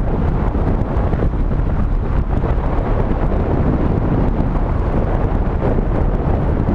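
Steady wind buffeting on the microphone of a moving GoPro, a dense low rumble with no change in level.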